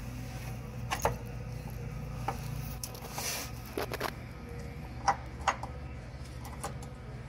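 Sharp metallic clicks and taps of a carriage bolt and its fish wire being pulled through a van's steel frame rail. There are about seven clicks, loudest about a second in and twice around five seconds, with a brief scrape a little after three seconds, over a steady low hum.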